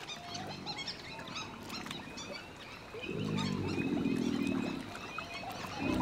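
American alligator bellowing: a low bellow of nearly two seconds starting about three seconds in, with a louder one beginning at the very end. It is the bellowing display that settles which alligators are strongest. Many small chirping calls run underneath.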